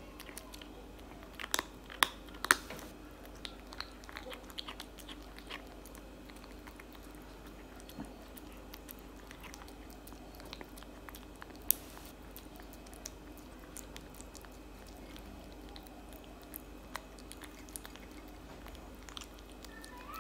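Tabby kitten chewing wet cat food chunks from a plate: steady wet chewing with scattered sharp clicks, a few louder ones about two seconds in and one near the middle.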